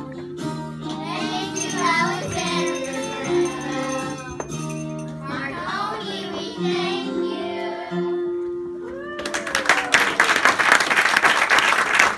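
A group of children singing a song over backing music with long held notes. About three quarters of the way in the song ends and audience applause breaks out suddenly, the loudest part.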